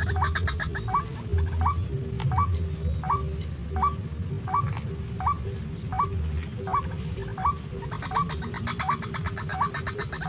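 White-breasted waterhen calls, the lure call for waterhen snaring: a short upward-hooked note repeated steadily about every two-thirds of a second, over a fast rattling chatter that fades in the middle and swells again near the end.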